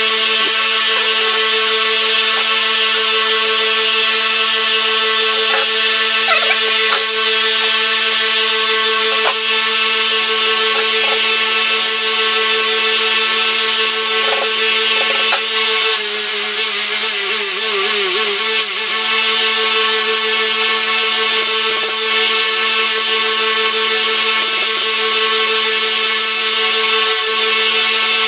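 Small bench belt sander with a coarse 40-grit belt running steadily, grinding the wooden handle of a machete: a constant motor hum under a bright sanding hiss. A little past the middle the hum wavers and a sharper, higher hiss comes in for a few seconds.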